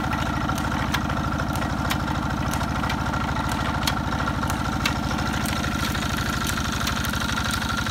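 Small stationary engine running steadily, belt-driving a sugarcane crusher with a large flywheel. Its rapid, even firing pulses come with a thin steady whine and scattered sharp clicks.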